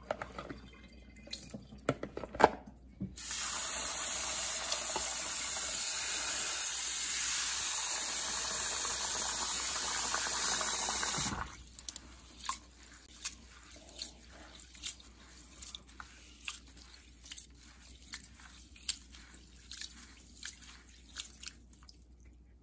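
Rinsing rice by hand in a bowl at the sink: a few clicks and rustles of dry rice, then a tap running steadily into the bowl for about eight seconds and stopping abruptly, then hands swishing the rice through the water in rhythmic sloshing strokes.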